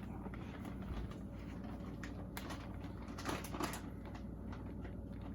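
Faint, scattered light taps and clicks of handling, over a low steady hum, as silicon carbide grit is put onto the glass lapping plate.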